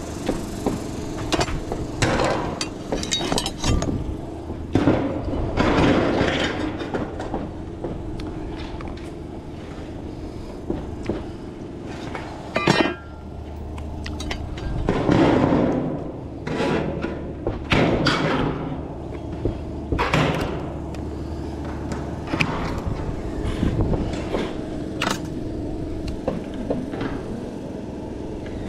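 Sheet-metal standing seam roof panels being handled and cut: repeated knocks, clanks and metal clatter, with tin snips cutting the panel's end near the end.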